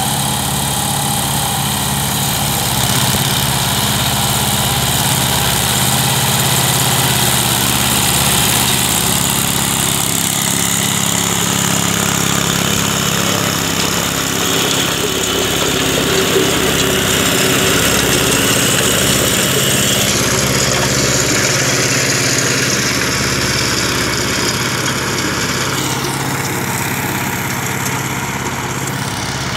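Compact diesel tractor engines running steadily under load, driving rotary tillers through dry, cloddy soil.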